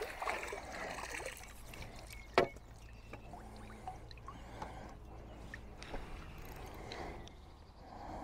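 Fishing tackle being handled at the water's edge: light water splashing and dripping with small clicks and rustles, and one sharp knock about two and a half seconds in.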